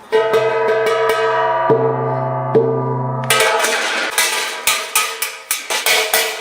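Bronze gong struck, ringing with many sustained tones, and struck again twice. About halfway through, quick hammer blows on the metal take over at about three a second.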